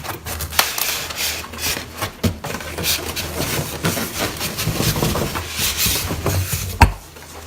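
Cardboard and foam packaging being handled, rubbing and scraping against each other as a washing machine is unboxed, with many small clicks and one sharp knock near the end.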